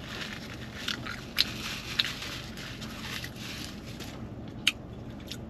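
A person chewing a mouthful of burrito, with wet mouth sounds and a few short sharp clicks, the most distinct about one and a half, two and nearly five seconds in.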